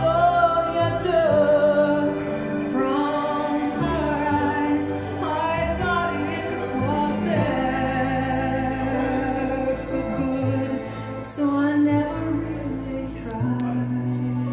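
Recorded music with a singing voice over slow, sustained accompaniment and held bass notes, played back through a pair of floor-standing hi-fi loudspeakers in a demonstration room.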